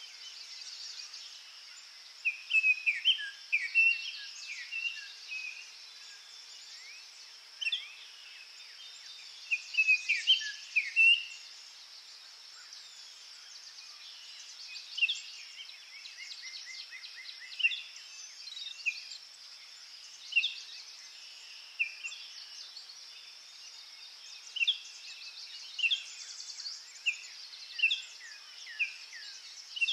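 Songbirds chirping and calling over a steady high-pitched background drone. The calls come in bunches early on, then a quick run of notes, then single calls every second or two.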